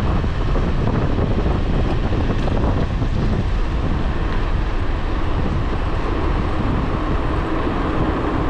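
Steady wind rush and road rumble on the microphone of a bicycle-mounted action camera while riding along an asphalt street.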